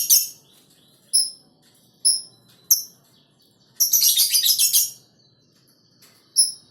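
Lovebird calling: a few separate short, high chirps, and near the middle a rapid chattering run of calls lasting about a second.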